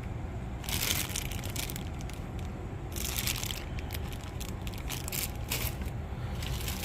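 Plastic bags of model-kit parts crinkling and rustling as they are handled, in irregular bursts, the loudest about a second and three seconds in, with scattered small clicks.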